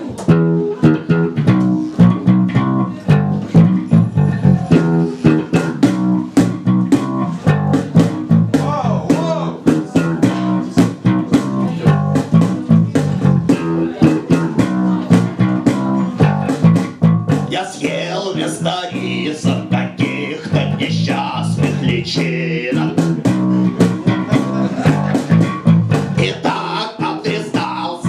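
Live band playing: an electric bass guitar carries the tune over a steady beat, with guitar. A little past the middle, higher parts join, with a man singing.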